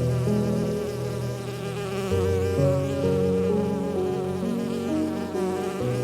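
Instrumental background music: sustained, buzzy-sounding chords that change about every three to four seconds.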